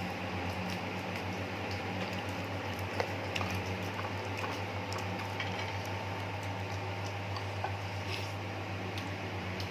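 Scattered small clicks and crackles of cooked shrimp being peeled and eaten, with a sharper click about three seconds in, over a steady low hum.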